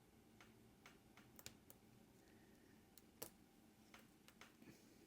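Near silence broken by a handful of faint, scattered small clicks, the loudest a little past three seconds in: tiny watch parts being handled and seated during reassembly of a G-Shock watch module.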